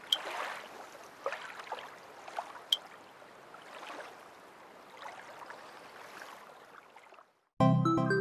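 Soft sea-water ambience, a gentle wash of waves with a couple of short high plinks. It cuts out briefly, and background music with a steady beat starts near the end.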